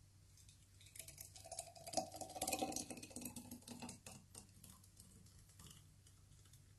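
Thick smoothie pouring from a food processor bowl into a glass: faint soft pattering with many small clicks, starting about a second in and dying away after about four seconds.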